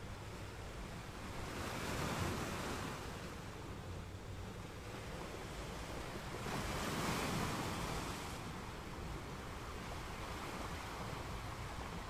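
Sea waves washing in: two slow swells of surf, about two and seven seconds in, over a steady low rumble.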